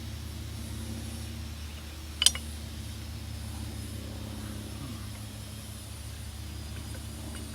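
A steady low machine hum, with one sharp click about two seconds in.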